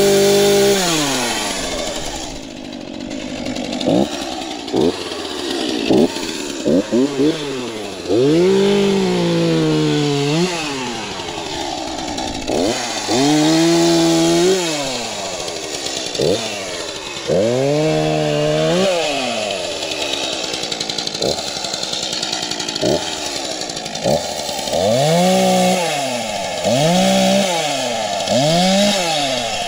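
Stihl MS231 C-BE chainsaw's two-stroke engine running and being revved again and again, about a dozen times. Some revs are quick blips and some are held for a second or two, each climbing in pitch and then dropping back to idle.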